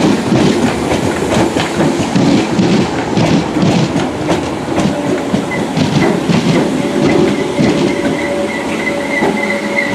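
Merseyrail electric multiple unit arriving and passing close by, its wheels clicking rhythmically over rail joints and pointwork. About halfway through a steady high squeal sets in as the train slows to stop.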